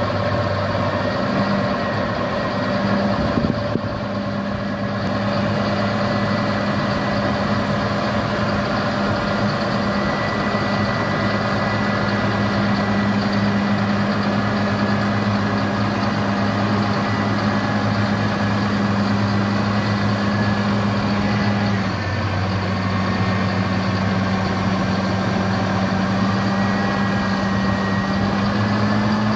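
Massey Ferguson 8730S tractor's diesel engine running steadily at low speed, with a thin high whine above the engine note. The engine note dips briefly about three-quarters of the way through and rises slightly near the end.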